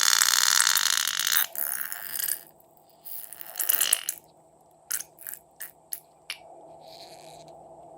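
Slime being worked by hand: a crackly, sticky scraping rush for about two and a half seconds, a shorter swell of the same a second later, then a few sharp clicks.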